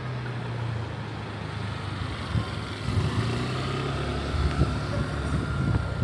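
A vehicle engine running with a steady low hum, over general urban background noise.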